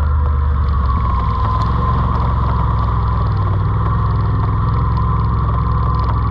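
An ATV engine running steadily while riding, a continuous drone with a constant whine over it.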